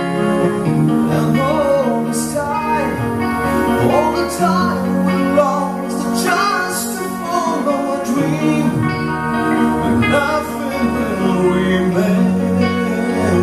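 Live rock band playing a song: a male singer singing over sustained keyboard chords, electric guitars, bass and drums.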